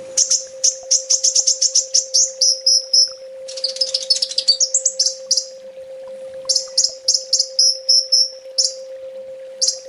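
Kolibri ninja sunbird singing in rapid-fire bursts: fast runs of high, sharp chirps and trills, broken by short pauses about halfway and near the end. A steady low hum runs beneath the song.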